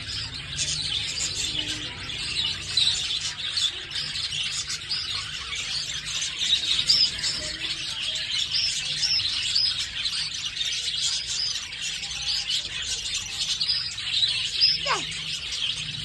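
A large group of caged budgerigars and other small parrots chirping and chattering continuously, with a brief falling cry near the end.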